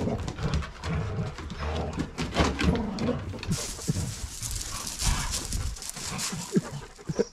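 Excited canines moving about, with scuffling, clatter and short pitched cries. A hissing rustle joins about halfway through.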